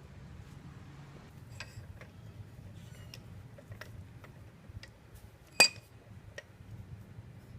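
Metal clinks and taps of hand tools on a Wilton bench vise being taken apart: scattered sharp knocks, with one louder ringing clank a little past halfway, over a faint steady low hum.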